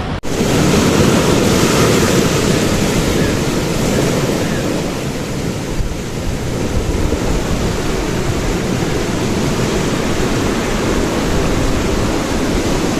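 Steady rush of ocean surf breaking on a rocky shore.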